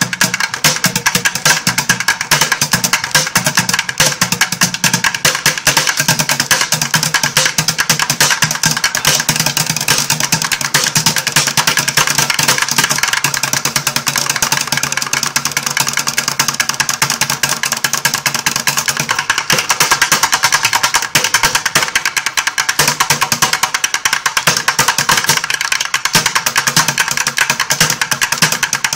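Bucket drumming: drumsticks beating fast, dense, unbroken rhythms on upturned plastic buckets, played by two drummers at once.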